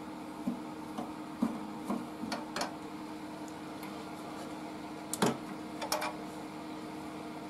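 Scattered light clicks and small knocks of hands releasing the blade from the upper clamp of a Clarke Woodworker scroll saw and slackening its tension, with one louder knock about five seconds in, over a steady low hum.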